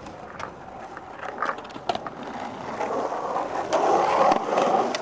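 Skateboard wheels rolling on concrete in a skatepark bowl, with a few sharp clicks and knocks in the first half. The rolling grows louder around the fourth second.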